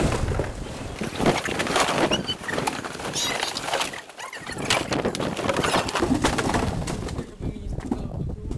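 Empty cardboard boxes knocking, scraping and crumpling as a person falls into and thrashes around in a heap of them: many short knocks and rustles, with a brief lull about four seconds in.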